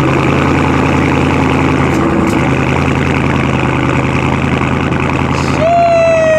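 Dodge Charger Scat Pack's 392 HEMI V8 idling steadily just after a cold start. Near the end a loud held high tone, falling slightly in pitch, sounds for about a second over the engine.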